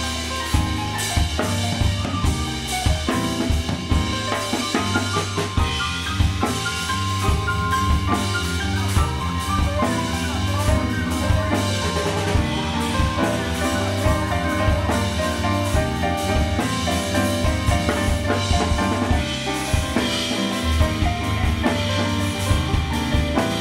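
Live band playing instrumental funk-jazz: a drum kit with continuous snare, kick and cymbal strokes over a deep electric bass line and keyboard notes.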